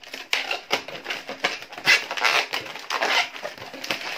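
Inflated latex modelling balloons squeaking and rubbing against each other as they are twisted and pressed together by hand, in a run of irregular short squeaks, the loudest about two seconds in.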